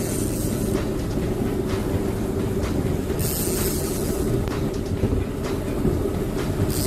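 Boat engine running steadily, a low even drone. Short bursts of hiss come and go over it.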